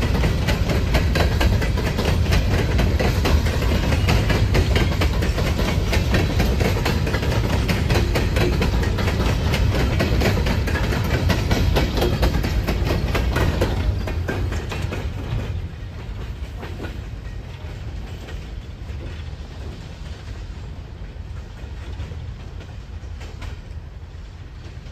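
Freight train cars rolling past, the wheels clicking steadily over rail joints above a heavy rumble. About fifteen seconds in, the last cars go by and the sound falls to a fainter, fading rumble.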